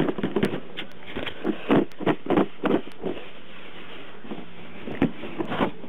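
Tablet retail box and its packaging being handled and opened by hand: a quick run of short scrapes, rustles and knocks for the first three seconds, then a few more about five seconds in.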